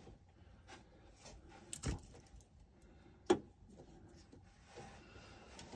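Faint handling noise: light rustling and small clicks, with two sharper knocks, one about two seconds in and another about three and a half seconds in.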